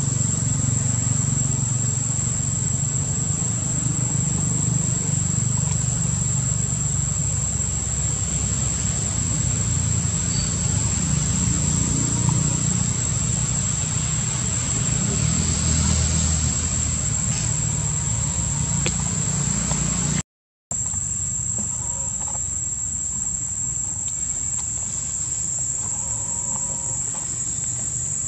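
Steady high-pitched insect drone over a constant low rumble, with a brief dropout about twenty seconds in.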